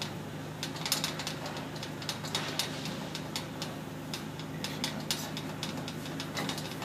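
Scattered small clicks and scrapes of a steel awl pushing a rubber window gasket into place around a Lexan pane on a sheet-metal door, over a steady low hum.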